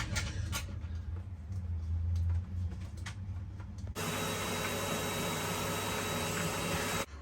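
A low hum with a few light clicks, then about four seconds in a motor-driven machine starts running steadily with a smooth whirring noise, and cuts off abruptly about three seconds later.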